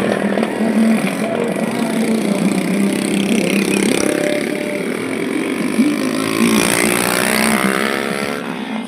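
Motorcycle engines passing on a busy road, one rising in pitch as it accelerates near the end.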